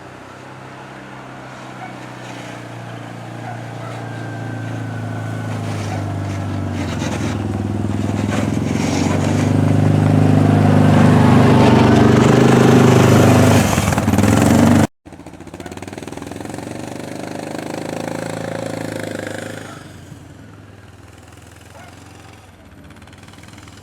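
Engine of a Yamaha Rhino 660 side-by-side running, growing steadily louder as it comes closer. It cuts off abruptly about 15 seconds in, starts again and falls away about 20 seconds in.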